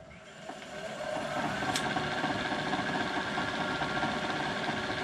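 Sioux valve grinder's replacement electric motor switched on for its first run. It spins up with a rising whine over about a second and a half, then runs steadily, belt-driving the grinder, with one click about two seconds in.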